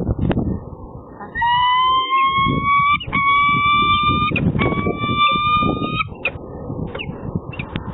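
Peregrine falcon calling: three long, drawn-out notes, each steady and slightly rising, run one into the next from about a second and a half in to about six seconds. Scratching and crunching of gravel in the nest scrape runs underneath, with a few sharp clicks.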